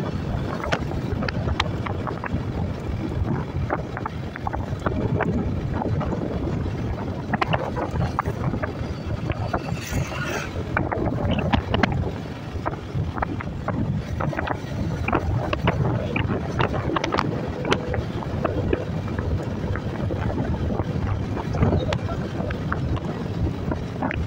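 Wind buffeting the microphone of a Yamaha scooter rider at about 40 km/h, over the steady hum of the scooter's engine and tyres on the road.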